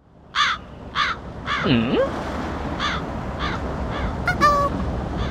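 A crow cawing repeatedly, about six caws, the later ones fainter, over a steady background rush. A different call sliding down and back up in pitch comes about two seconds in, and a short high call near the end.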